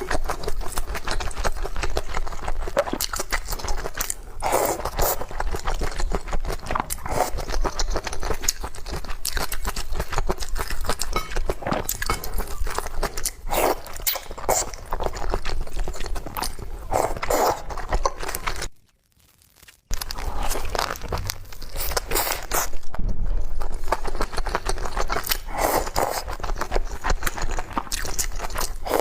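Close-miked chewing and crunching of food, made up of many small clicks and short noisy strokes. The sound cuts out completely for about a second roughly two-thirds of the way through.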